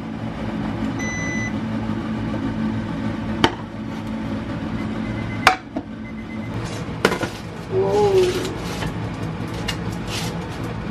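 Induction cooktop humming steadily under a saucepan of boiling water, with a short electronic control beep about a second in. Three sharp knocks follow as cookware is set down on the glass top, then a brief wavering squeak near the eight-second mark.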